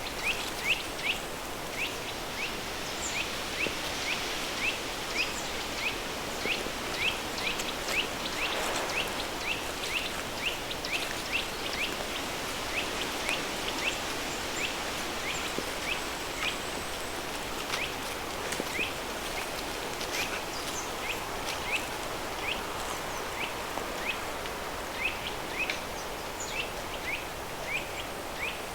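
Steady rush of a river stream under a layer of added pink noise, with a bird chirping over it, about two short rising chirps a second.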